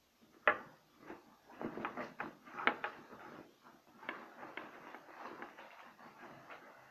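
A sports bag being handled on a table: a sharp knock about half a second in, then a string of knocks and rustling.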